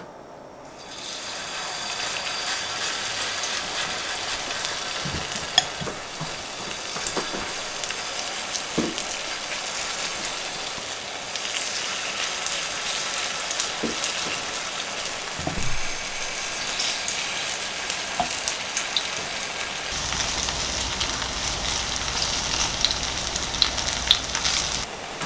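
Cockle and minari pancake batter frying in a pan of hot oil, sizzling and crackling. The sizzle starts about a second in and gets louder near the end, with a few soft knocks against the pan.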